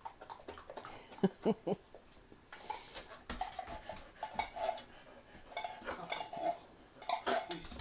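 A metal spoon scraping and clinking against a can and a plate as wet dog food is scooped out, in irregular clicks and scrapes.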